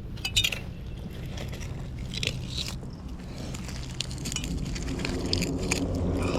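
Scattered clicks and scrapes of small metal finds being pulled off a magnet-fishing magnet, over a steady low rumble.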